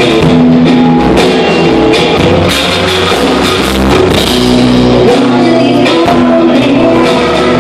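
Live rock band playing loudly: drum kit, electric guitar, bass guitar and synthesizer keyboard.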